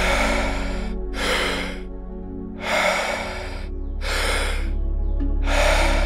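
A person's deep, paced breathing, about five rushes of breath in and out in turn, each under a second, over a soft, steady ambient music drone.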